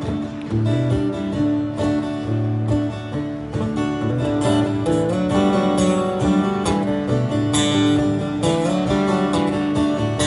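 Two acoustic guitars strumming chords together in a song's instrumental intro, a steady rhythm without vocals.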